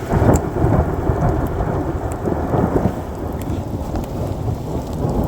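Thunder from a close lightning strike, rumbling and easing off a little after a few seconds, over heavy rain.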